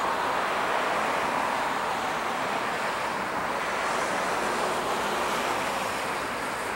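Steady, even rushing noise of a distant approaching freight train, westbound coal empties, with no clear engine note or wheel clicks yet.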